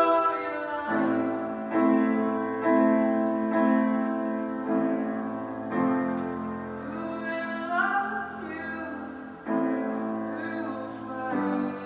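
Grand piano played in slow, held chords struck about once a second, with a girl's singing voice sliding up in pitch over them around the middle.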